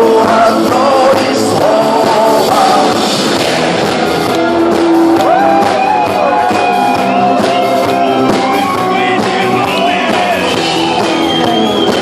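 Live rock band playing a song, with a singer's voice over guitars and drums.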